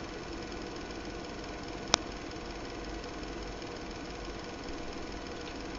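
Steady, faint machine hum with one sharp click about two seconds in.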